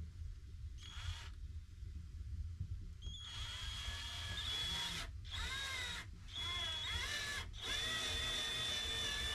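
Cordless drill driving a self-tapping screw into wooden wall boards. Starting about three seconds in, its motor whines in four short runs with brief stops between them, the pitch rising and falling as the trigger is worked.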